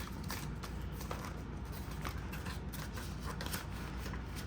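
Faint, irregular rustling and crinkling of paper banknotes being handled.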